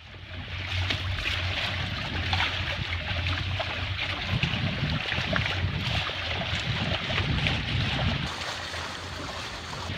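Water splashing and gurgling along the hull of an Astus 20.2S trimaran sailing under spinnaker in 5–7 knots of wind, over a low steady rumble.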